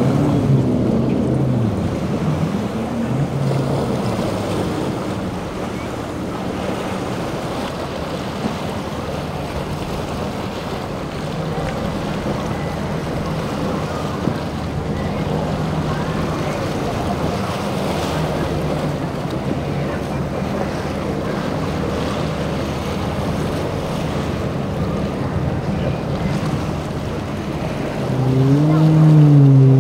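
Motorboat engines running through a rough inlet, over the steady wash of waves and wind noise on the microphone. Near the end a boat engine comes in louder, its pitch rising then dipping as it throttles up.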